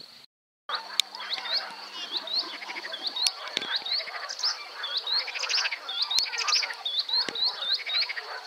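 Several birds singing in an evening chorus, one repeating a short upslurred chirp in runs of three or four, with trills and warbling from others. There is a brief dropout in the sound near the start.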